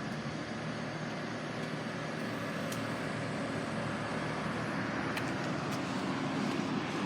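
Steady background traffic noise with a few faint clicks.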